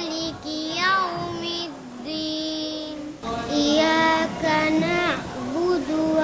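A young girl singing, holding long notes that bend and slide. About three seconds in there is a short break and a change in the recording, and the singing carries on.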